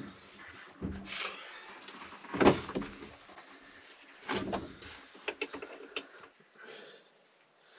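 Several separate knocks and clunks, the loudest about two and a half seconds in, with a quick run of sharp clicks around the middle: the camper's door and gear being handled.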